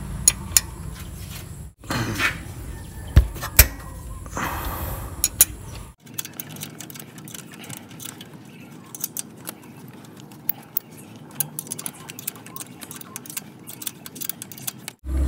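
Light metallic clicks and clinks of a wrench working the 12 mm mounting bolts of a clutch slave cylinder loose, with small tool-and-part handling noises. The sound cuts out abruptly twice, about two and six seconds in.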